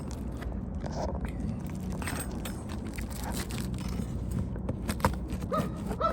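Scrapes and light clicks of a roofing tool working under brittle asphalt shingles to pull out nails, with two short squeaks near the end.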